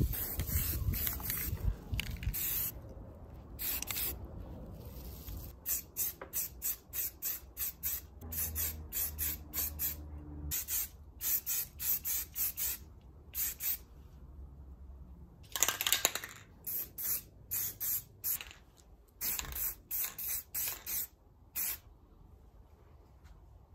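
Rust-Oleum aerosol spray-paint can spraying in many short hissing bursts, with one longer spray about two-thirds of the way through.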